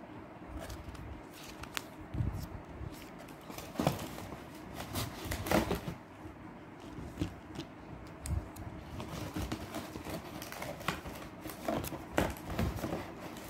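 Small cardboard lipstick boxes being handled, turned and knocked together in the hand, giving scattered irregular clicks and rustles.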